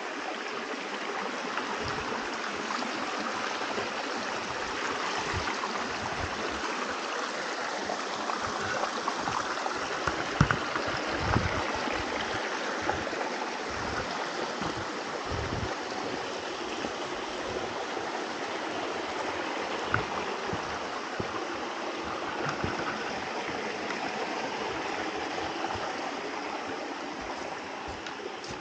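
Small mountain stream running over rocks, a steady rushing trickle, with occasional short low thumps underneath.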